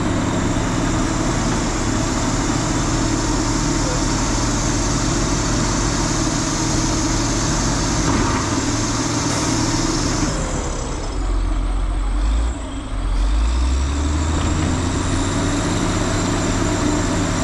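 Heavy diesel vehicle engines running under load, with a dense hissing layer over the engine note for the first ten seconds or so that then drops away. The engine sound dips briefly a couple of seconds later.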